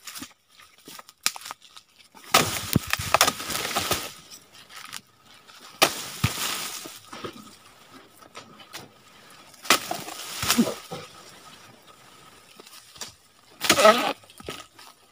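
Dodos, a pole-mounted oil palm harvesting chisel, thrust into the frond bases of a low oil palm: four bouts of chopping and crackling as fronds are cut through and break away, a few seconds apart.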